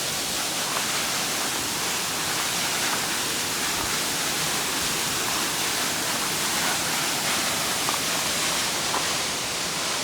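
Waterfall plunging from a cliff onto rocks: a steady, even rush of falling water. The flow is low, with little water coming over.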